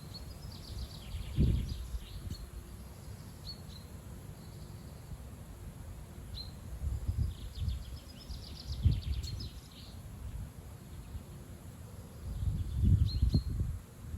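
Strong wind gusts buffeting the microphone in low rumbling bursts, the loudest about a second and a half in, around nine seconds and near the end. Small birds chirp and twitter throughout in short trills.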